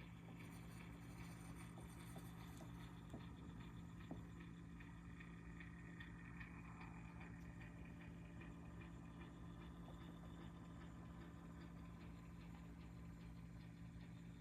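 Electric heater running: a faint, steady low hum, with a couple of light ticks a few seconds in.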